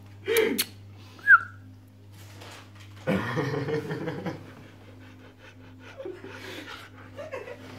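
A dog panting, with a short high squeak about a second in and a louder stretch of breathing around three seconds in. A low steady hum runs underneath.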